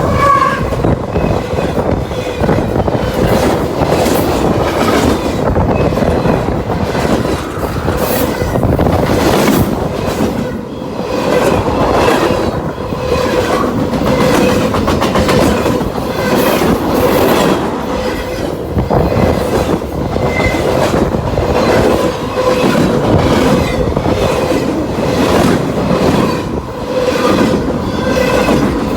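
Freight cars of a CSX manifest train rolling past at close range, the wheels clicking steadily over the rail joints with a continuous rumble and a steady squeal from the wheels.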